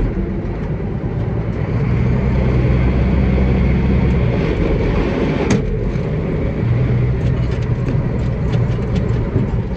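Heavy farm machine's engine running steadily, a low drone heard from inside the cab, with one sharp click about five and a half seconds in.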